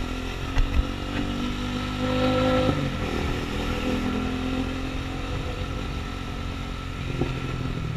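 Motorcycle engine pulling the bike along: its pitch climbs for a couple of seconds, drops abruptly about three seconds in, then holds steady at cruise. Two sharp knocks sound under a second in.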